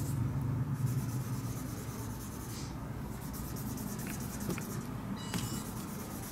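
Marker pen drawing on paper, a steady scratchy rubbing of the tip, with a few small clicks near the end.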